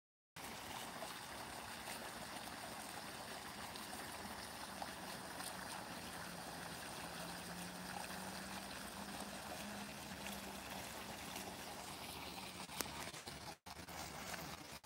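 Steady hiss of trickling, running water, with a faint low hum through the middle. The sound drops out for a moment near the end.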